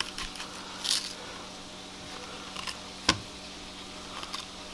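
Knife cutting and scraping the seeds and ribs out of a red bell pepper on a plastic cutting board: soft crackling and scraping with a few small clicks, and one sharp tap about three seconds in.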